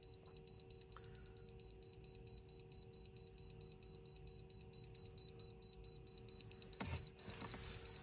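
Handheld KENMIC EMF meter giving a steady, rapid high-pitched alarm beep, several beeps a second, its red-screen warning of a high field reading near the charging car. Some handling rustle near the end.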